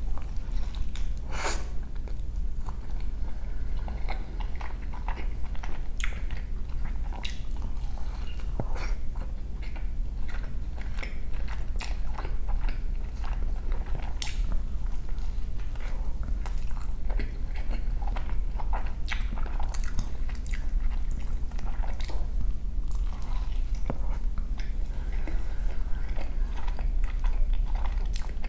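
Close-miked chewing of a breakfast burrito, with a bite at the start: irregular wet clicks, smacks and small crunches from the mouth over a steady low hum.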